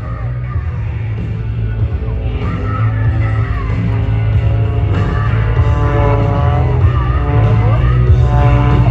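Loud rock music with singing, growing louder.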